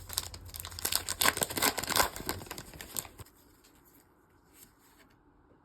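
Foil Pokémon TCG booster pack wrapper being torn open and crinkled, a few seconds of dense crackling and tearing.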